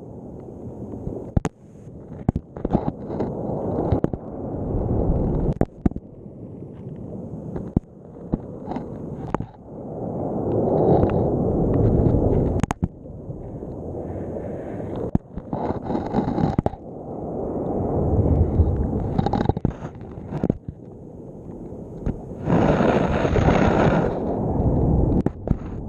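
A GoPro dragging along the sea bed underwater in heavy surf: deep rushes of wave surge swell and fade every few seconds, broken by many sharp knocks and scrapes of the camera against the bottom.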